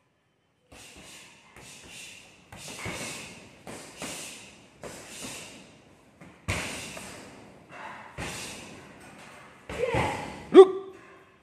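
Kicks landing on a heavy punching bag: a run of dull thuds, roughly one a second, with a short shout near the end.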